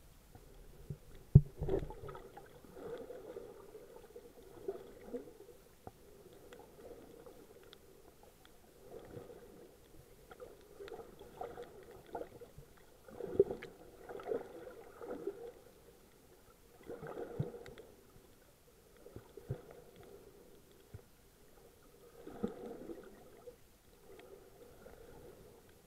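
Muffled underwater sound picked up by a snorkeler's camera: gurgling and sloshing of water in irregular bursts every few seconds, with one sharp knock about a second and a half in.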